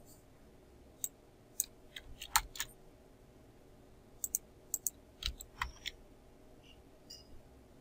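Computer keyboard keystrokes and mouse clicks, in scattered small clusters of sharp clicks with short pauses between, fading to a few faint clicks near the end.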